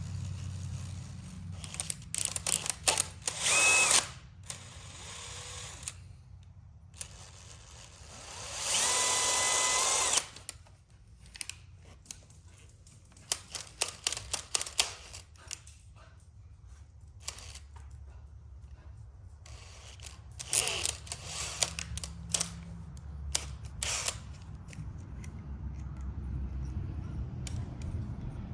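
Power drill driving a thread tap slowly into a damaged bolt hole to cut new threads for a coil thread insert. There are two longer runs about three and nine seconds in, and short trigger spurts and clicks in between and after.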